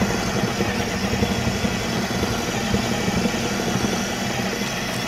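Food processor motor running steadily, blending finely ground sandwich cookies with softened cream cheese into truffle dough.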